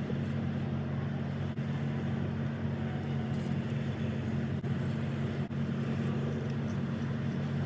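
Steady car engine and road noise heard from inside the cabin while driving, with a few brief dropouts.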